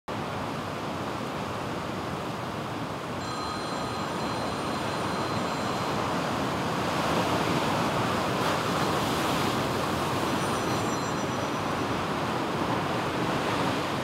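Heavy surf breaking on a rock shelf, with whitewater pouring off the ledge: a steady rushing noise that swells about halfway through.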